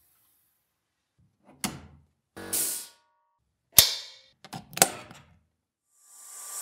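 Sharp metallic clicks and a short burst of air as an air hose quick-connect coupler is snapped onto an air compressor's regulator fitting. About six seconds in, the steady hiss of a sandblasting gun starts up.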